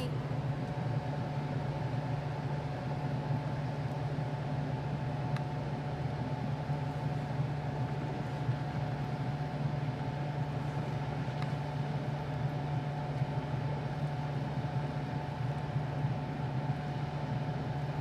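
Boat engine idling steadily: an even, unchanging low hum with a faint steady whine above it.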